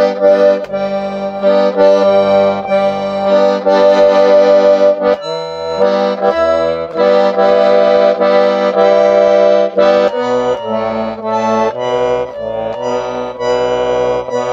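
A Lyubitelskaya Russian garmon (button accordion) played with chords over changing bass notes. The instrument is badly out of tune throughout, and the bass sounds terrible.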